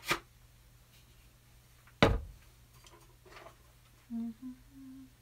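A single sharp knock about two seconds in, then a woman humming a few short notes near the end, each a little higher than the last.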